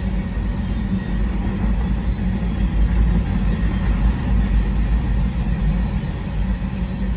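Empty covered hopper cars of a freight grain train rolling past close by: a steady, loud rumble of steel wheels on the rails.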